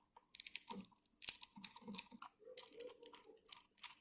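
Small screws being driven into the plastic case of an Nvidia Shield TV: irregular scraping and crunching from the screwdriver and the casing being handled.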